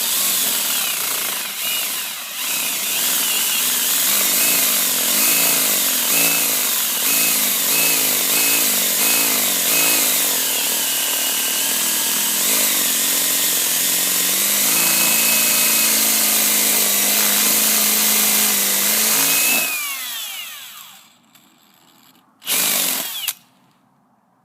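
Power drill boring into a metal deadbolt lock, the motor's pitch rising and falling as the bit bites into the thick metal. It winds down about twenty seconds in, then gives one short burst before stopping.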